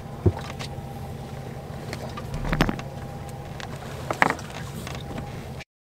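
Boat engine running steadily in a low hum, with a few brief knocks and clicks over it. The sound drops out completely for a moment near the end.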